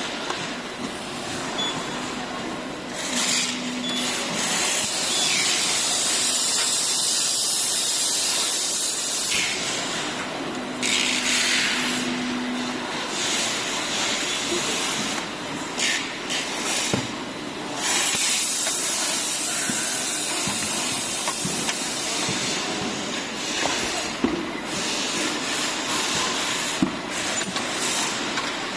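Factory floor noise: a steady hiss with bursts of air-like hissing, scattered clicks and knocks, and brief low hums.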